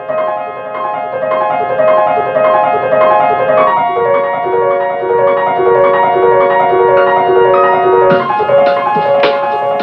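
Background music: a repeating keyboard melody of short sustained notes, with a beat of sharp percussion coming in about eight seconds in.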